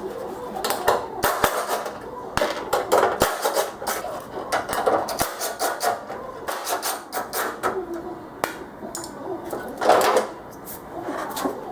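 Irregular knocks and clatter of hard objects, like tools and metal parts being handled and struck, with the loudest knock near the end.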